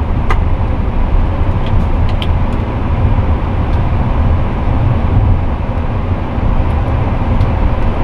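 Steady low rumble of cockpit noise in a Sukhoi Superjet 100 airliner rolling slowly on the ground after landing, with a faint steady hum and a few light clicks in the first half.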